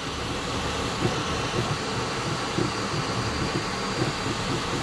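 Flashforge Adventurer 5M Pro 3D printer mid-print: a steady cooling-fan hiss, with the stepper motors whirring in short tones that keep shifting in pitch as the print head moves.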